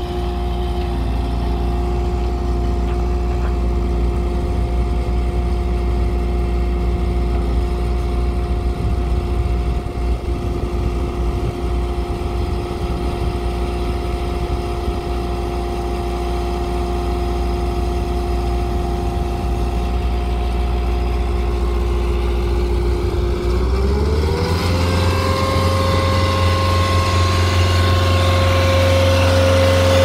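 Diesel engine of a 2019 ASV RT-120 Forestry compact track loader running steadily at low speed with a steady whine over its note. About three-quarters of the way through it is throttled up: the pitch rises over about a second, then holds at the higher speed.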